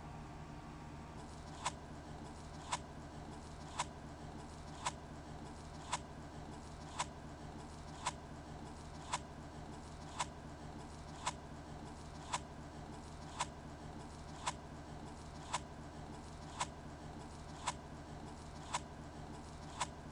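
A sharp click repeating steadily about once a second over a low, steady hum.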